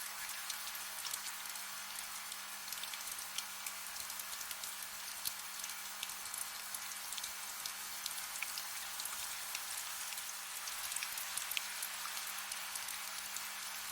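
Soft steady rain with many small drops pattering, a continuous hiss, with a faint low hum underneath.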